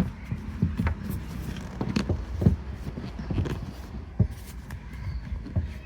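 Irregular knocks, clicks and light clatter of things being handled and set down close to the microphone, with the loudest knocks near the start, about two and a half seconds in and about four seconds in, over a steady low hum.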